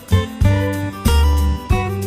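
Background music with plucked guitar over a steady beat.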